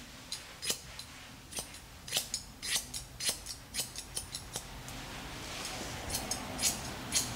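Straight grooming shears snipping a dog's beard hair around the muzzle: a quick irregular run of crisp snips, two or three a second.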